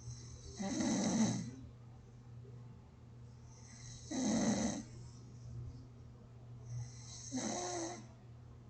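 A person snoring gently in sleep: three slow snoring breaths, about three and a half seconds apart, over a steady low hum.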